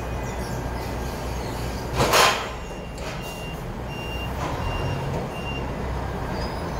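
Forklift reversing alarm beeping four times, about twice a second, over the steady low hum of the forklift's engine. A short, loud hiss about two seconds in is the loudest sound.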